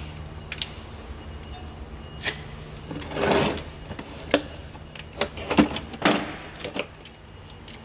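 Tools and brake parts being handled during a brake job: scattered knocks and clinks, with a short scraping rustle about three seconds in, over a steady low hum.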